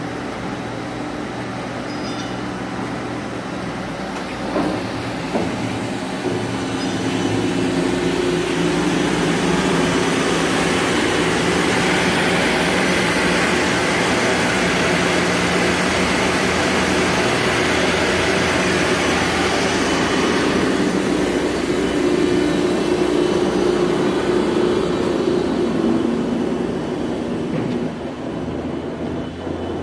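Heavy industrial machinery running: a steady mechanical drone with a low hum underneath. It grows louder about seven seconds in and falls back near the end.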